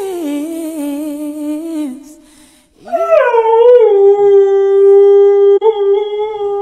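Samoyed howling: one long howl starting about three seconds in, rising at first and then held at a steady pitch. Before it, another long held note that drops in pitch stops about two seconds in.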